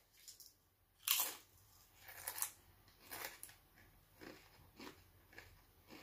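A Doritos tortilla chip bitten and chewed with the mouth closed: a string of short crunches, the loudest about a second in, then roughly once a second and growing fainter.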